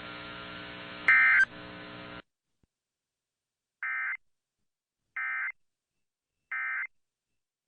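A steady hum with a short, loud tone burst about a second in cuts off, and after a pause come three short, identical bursts of warbling data tones about 1.3 seconds apart: the EAS end-of-message code, sent three times to close the alert.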